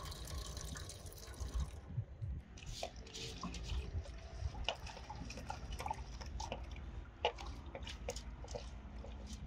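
Rinse water poured from an aluminium pot into a metal tin, the stream stopping about two seconds in. Then hands working soaked grain in water in the pot, with scattered drips and small splashes.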